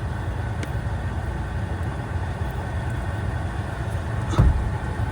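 Rooftop air-conditioning unit running with a steady low mechanical hum. A short knock comes about four and a half seconds in.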